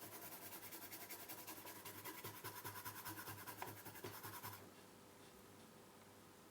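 Rapid back-and-forth scrubbing on a circuit board, washing off flux residue, stopping about four and a half seconds in.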